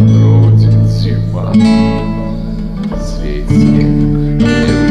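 Acoustic guitar strumming chords, a new chord struck about every one to two seconds and left to ring.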